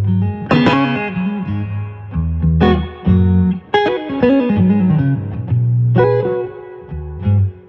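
Electric guitar played through a Sinewave JF-100 amplifier and speaker cabinet. Four chords are struck about every one to two seconds, each left to ring while low notes move underneath.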